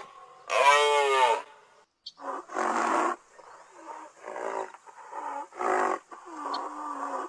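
A large wild animal calling: one pitched, wavering call about a second long near the start, then from about two seconds in a series of about six shorter, rougher grunting calls, one every half to three-quarters of a second.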